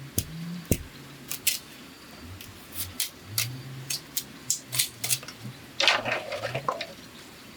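Bamboo being worked by hand: a string of sharp clicks and snaps, with a louder scraping rasp about six seconds in.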